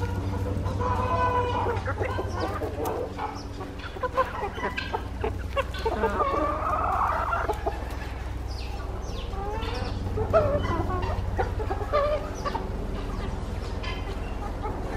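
Buff Silkie chickens clucking and calling in short bursts, with a longer drawn-out call about six seconds in, over a steady low hum.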